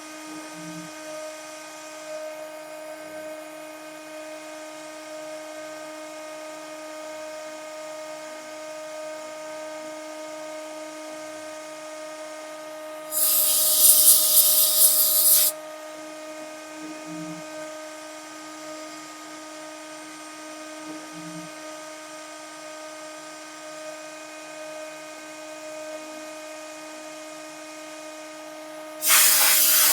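CNC machine spindle running steadily with a constant whine while milling a copper-clad circuit board. Two loud hissing bursts break in, one lasting about two seconds near the middle and a short one at the very end.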